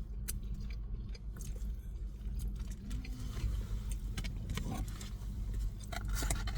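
A person eating a fried chicken sandwich: chewing and biting with scattered light clicks and rustles, over a steady low hum.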